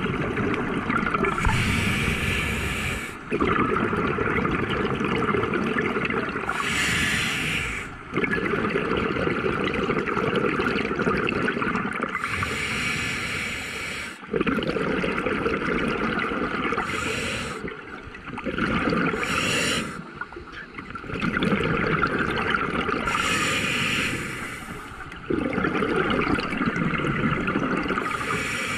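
A scuba diver breathing through a regulator underwater. Each breath is a short hiss from the regulator, followed by a long rush of exhaust bubbles, and the cycle repeats about every five seconds.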